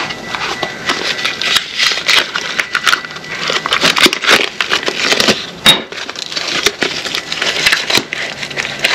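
Metal brake pads, backing shims and their clip being handled and fitted together: a dense run of irregular small clicks and light rattles with rustling.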